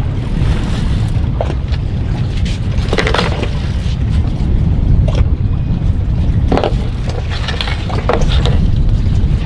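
Wind buffeting the microphone and water noise on a boat at sea, a steady deep rumble, with a handful of short knocks and scrapes scattered through it.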